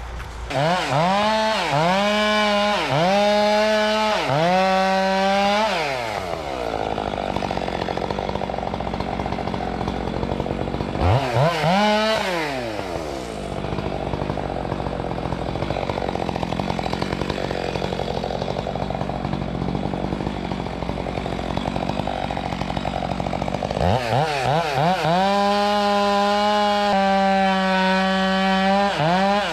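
Gas chainsaw revving in a run of quick bursts, then dropping to a steady idle for a long stretch with one short rev partway through, then revving up again and holding high speed near the end.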